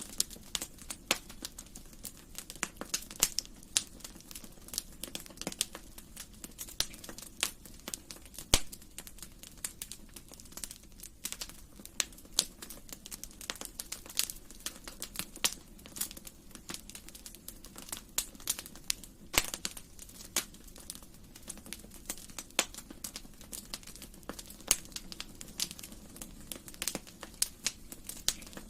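Wood fire crackling: irregular sharp pops and snaps, several a second, over a soft steady rush of the flames. The loudest pops come about eight and a half seconds in and again around nineteen seconds.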